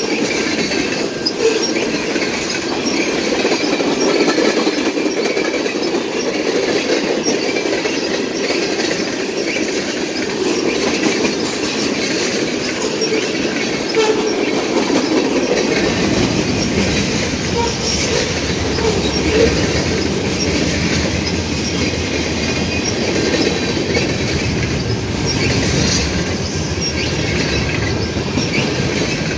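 Mixed freight train cars rolling past close by: a steady rumble of steel wheels on the rails with clacking and a faint high wheel squeal. A deeper, heavier rumble sets in about halfway through.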